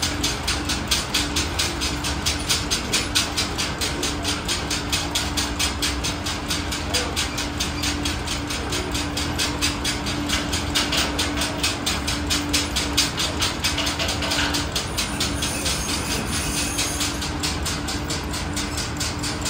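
Antique tractor engine running steadily under way, its exhaust beating in an even chug of about five or six pulses a second over a steady hum.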